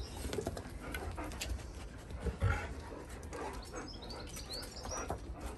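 Alaskan malamutes shuffling and sniffing about on brick paving, with soft scuffs and small clicks, a slightly louder rustle about two and a half seconds in, and a few short high chirps a little past the middle.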